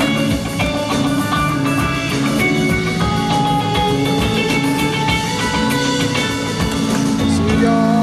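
Background music with a drum beat and sustained instrumental chords.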